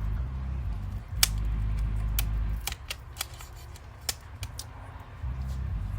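Several separate sharp clicks as the loose touchpad assembly of a disassembled laptop is handled and pressed, over a low rumble that comes and goes.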